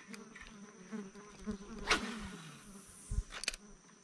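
A flying insect buzzing close by, a steady wavering drone. About two seconds in there is a sharp swish, and just after three seconds a low knock and a couple of clicks.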